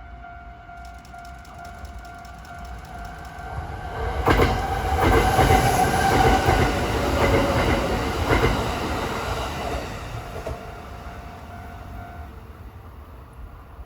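Kintetsu 8810 series electric train passing over a level crossing, loudest from about four to ten seconds in, with its wheels clacking over rail joints. The crossing's warning bell rings steadily and stops about twelve seconds in, after the train has gone by.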